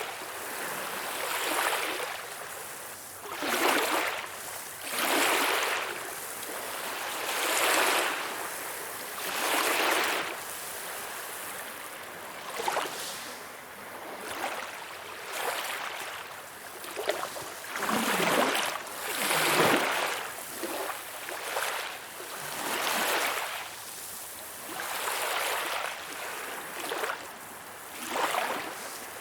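Small waves splashing, one after another, each a short swelling rush of water hiss coming every couple of seconds.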